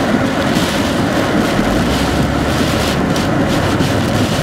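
Heavy hurricane rain and wind on a car as it drives along a wet road, heard from inside the cabin: a loud, steady rushing with tyre spray and road rumble.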